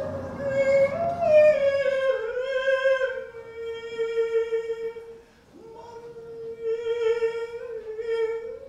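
A voice singing long, held wordless notes, sliding down in pitch about two seconds in and breaking off briefly about halfway before holding the note again. Low background music fades out near the start.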